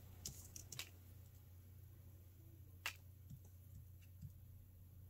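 Near silence with a low steady hum, broken by a few faint clicks and taps from handling paper die-cut pieces and a squeeze bottle of liquid glue, the sharpest a little under three seconds in.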